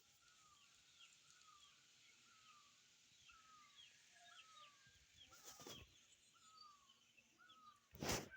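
A bird faintly calling in a steady series of short, falling notes, about one every 0.7 seconds. Two brief rustles break in, one about halfway and a louder one near the end.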